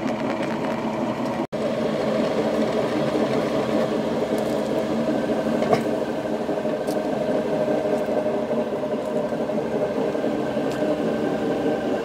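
Denis Cimaf 180D forestry mulcher rotor drum spun at about 600–700 RPM by a two-horsepower electric motor through a pulley, running with a steady hum made of several held tones. The noise comes from the drive-side (pulley-side) drum bearing, which the owner takes to be shot. The sound cuts out for an instant about a second and a half in.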